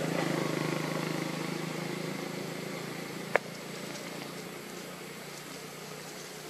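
A steady low engine hum that slowly fades, with one sharp click about three seconds in.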